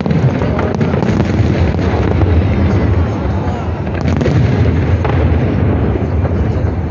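A dense barrage of aerial firework shells bursting, many booms running together into a continuous low rumble.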